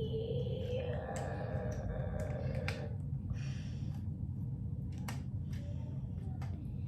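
Lego bricks clicking and clattering as they are handled and pressed together: a few sharp, separate clicks over a steady low hum.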